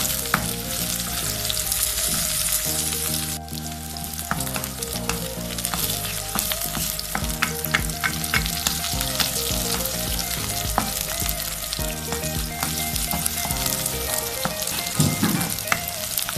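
Sliced onions sizzling in hot oil in a metal pan, being fried toward light golden brown, with a spatula stirring them and clicking and scraping against the pan.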